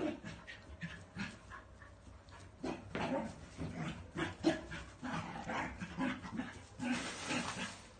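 A husky and a small fluffy dog in rough play, making a run of short vocal noises in quick bursts, with a brief lull about two seconds in. The sound stops just before the end.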